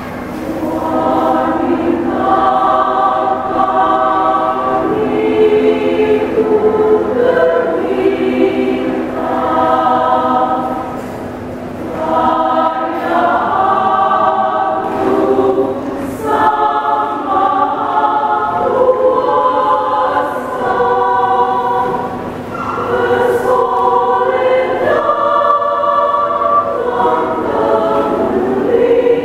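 Women's choir singing a hymn in several parts at once, in sustained phrases with short breaks between them.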